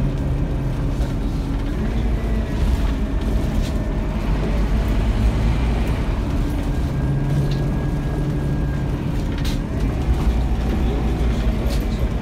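Scania K230UB Omnilink single-deck bus heard from inside the passenger saloon: its rear-mounted diesel engine and drivetrain give a steady low rumble. The engine note fades about two seconds in and comes back strongly in the middle, as the bus pulls and eases off.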